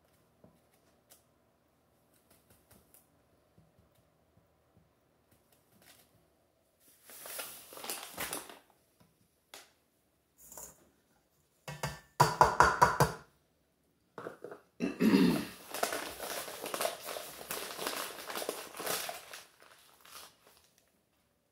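A paper sugar bag crinkling and rustling as white sugar is measured out. It comes in several bursts separated by quiet: a first burst after several seconds of near quiet, a short loud rattly one around the middle, and a longer dense stretch near the end.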